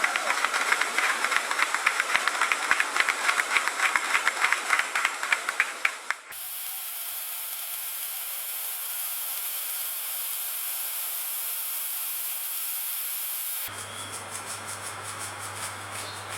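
Restaurant kitchen ambience in three abrupt sections: first about six seconds of fast, even knocking over a noisy background, then a steady hiss with a low hum, then a louder low hum with faint ticking for the last few seconds.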